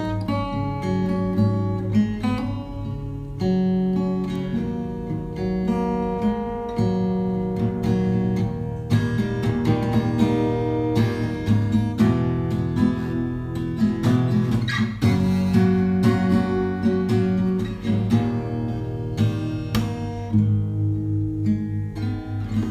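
Background music led by plucked guitar, with a steady run of distinct notes.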